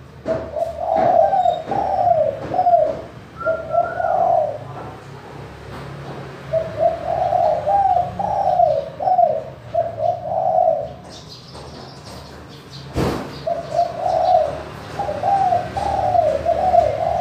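Spotted dove cooing: three bouts of repeated coo notes with short pauses between them. A single sharp knock comes about 13 seconds in.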